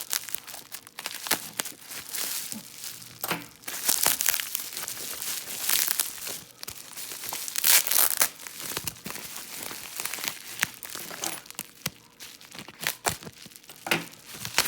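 Packaging crinkling and tearing in irregular bursts with sharp crackles as a wrapped item is cut open with scissors and unwrapped by hand.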